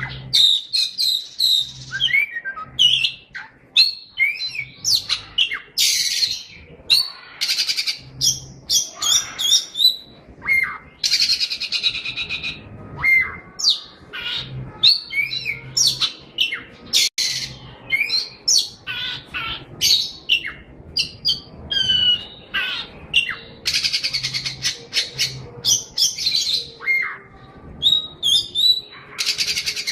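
A songbird singing a fast, varied song of whistled notes, chirps and rapid trills, with harsh buzzy bursts mixed in and hardly a pause.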